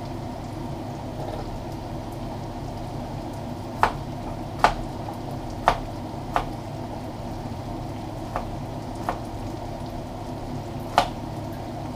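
Beef chuck cubes browning in oil in a stainless steel pot, sizzling steadily. From about four seconds in, a knife knocks sharply on a cutting board about seven times at irregular intervals as an onion is finely chopped.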